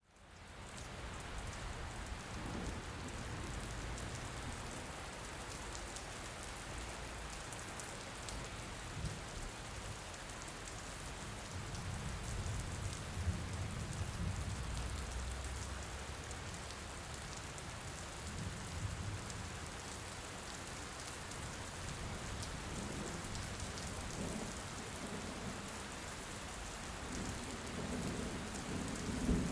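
Heavy rain falling in a steady, dense hiss that fades in at the start, with a low rumble swelling around the middle and again near the end.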